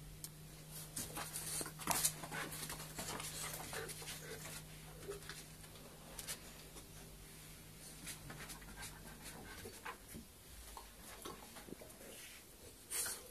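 Two young Dogue de Bordeaux dogs play-wrestling: panting and scuffling with irregular short clicks and rustles. There are two louder sudden noises, about two seconds in and near the end.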